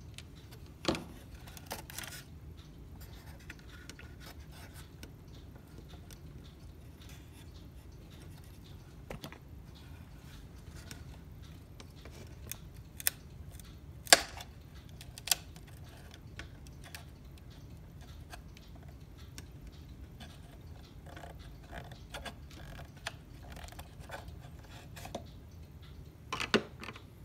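Scattered sharp clicks and knocks of wood and metal as the parts inside a wooden cuckoo clock case are handled and worked loose with a screwdriver, a few apart and the loudest about halfway through, with a steady low hum underneath.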